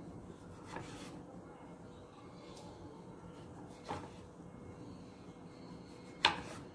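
A chef's knife slicing through a vegetable on a wooden cutting board, the blade knocking down onto the board three times, the last knock the loudest.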